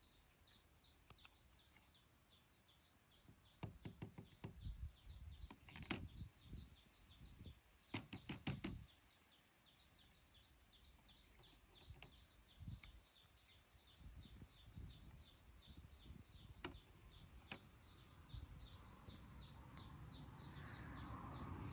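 Quiet outdoor ambience: a faint, high chirping repeated several times a second, with a few short clusters of sharp knocks and clicks in the first half.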